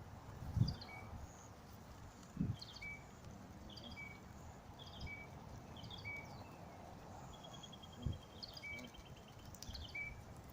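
A small bird chirping, a short high call about once a second, with a rapid even trill in the second half. A few low thumps also sound, the loudest about half a second in.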